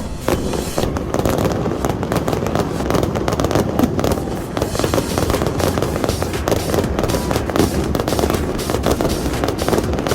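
Fireworks going off in a rapid, continuous string of bangs and crackles.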